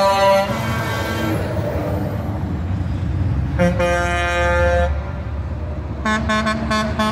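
Truck air horns blowing over the low rumble of passing diesel trucks: a blast that ends about half a second in, one long blast of just over a second near the middle, then a run of short, quick honks near the end.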